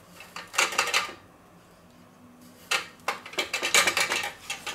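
Spice shaker of paprika shaken over a raw chicken: a short burst of rattling about half a second in, then a longer run of quick shakes from about three seconds in.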